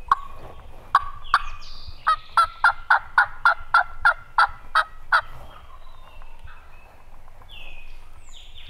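Turkey call run by a hunter: a couple of sharp clucks, then a loud series of about a dozen hen yelps at a steady rhythm of three to four a second that slows near the end, with songbirds chirping faintly behind.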